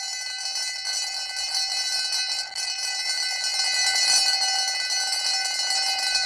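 A school bell ringing for the last bell, held as one long ring of several steady overtones that does not die away.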